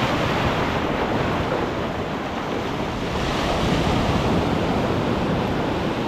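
Surf washing in the shallows as a wave breaks and runs up the beach, a steady rush, with wind buffeting the microphone.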